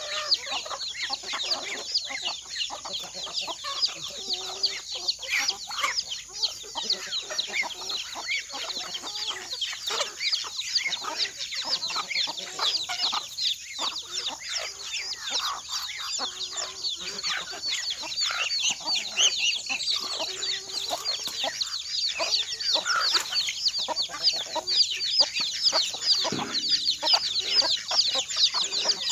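A flock of chickens clucking as they feed, with many short high chirps running throughout.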